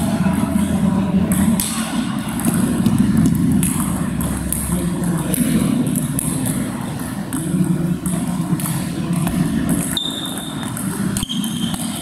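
Table tennis balls clicking off bats and tables in irregular, overlapping rallies at several tables, over a steady low background hum.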